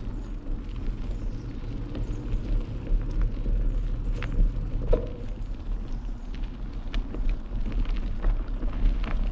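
Mountain bike rolling along a dirt trail: a steady low rumble of wind and tyre noise on the microphone, with scattered clicks and rattles from the bike over the ground.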